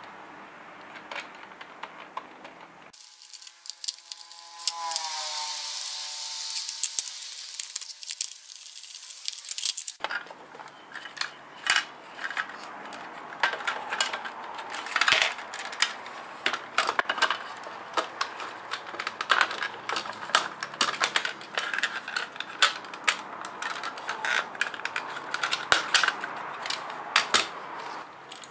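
Handling of a plastic toy case being taken apart with a small screwdriver: many sharp clicks, taps and knocks of hard plastic and small metal parts through most of the second half. Earlier, from about three seconds in to about ten, a hissy passage with a tone gliding down in pitch.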